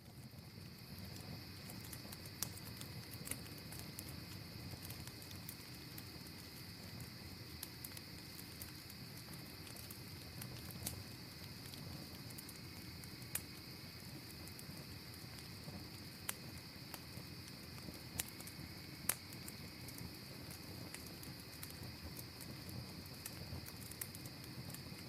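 Evening outdoor ambience: a steady high-pitched insect chorus with a fainter, lower steady tone beneath it, over a low rumble. Scattered sharp crackles and clicks come irregularly throughout.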